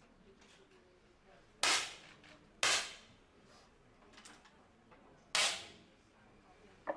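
Three 10 m air pistol shots, each a sharp crack with a short ring-out: the first two about a second apart, the third about two and a half seconds later.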